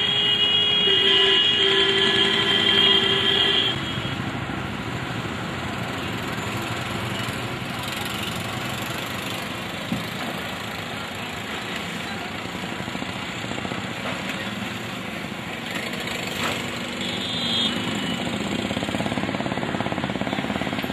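A vehicle horn blares steadily and cuts off about four seconds in. Steady street traffic noise with passing vehicle engines follows, with a brief high horn beep near the end.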